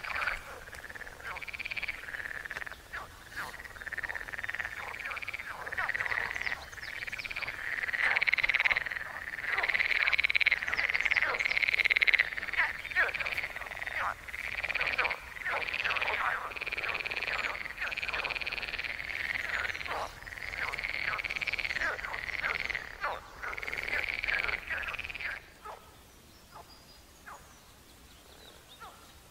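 A dense chorus of frogs croaking over and over, many calls overlapping, which cuts off abruptly a few seconds before the end.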